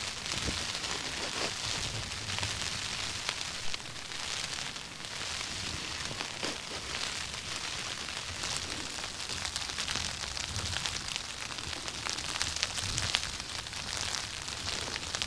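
Rain falling steadily on tent fabric: a dense, even hiss of many small drop impacts that swells a little now and then.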